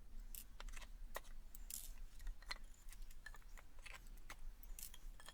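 Faint, irregular clicks and light metallic taps from a large crowbar levering nails out of pallet wood.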